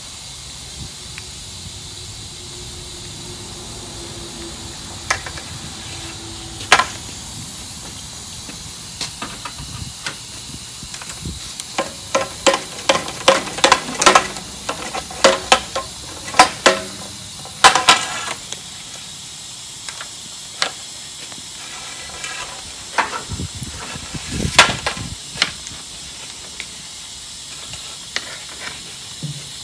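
Irregular metal clicks and clinks, some ringing briefly, as a corroded wing nut and bolt on an aluminium height stick is worked back and forth with a tool to free its seized threads. The clinks come thickest in the middle, over a steady hiss.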